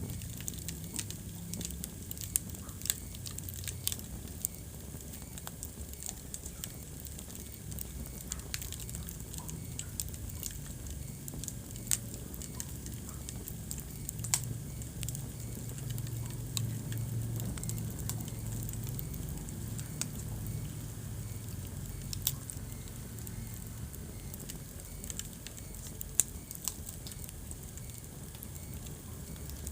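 Wood fire burning in a fireplace: a low steady rumble of flame with constant irregular crackles and sharp pops, a few louder snaps scattered through.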